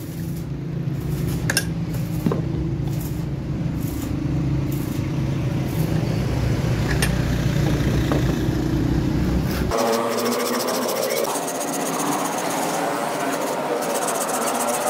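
A steady low, engine-like hum with a few light clicks of tools being handled at a bench vise. About ten seconds in the hum stops abruptly, and a hand saw is heard cutting through the steel spring clamped in the vise.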